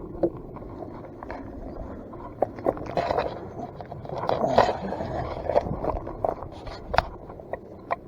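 Rustling and scraping of something being handled, with scattered sharp clicks and knocks.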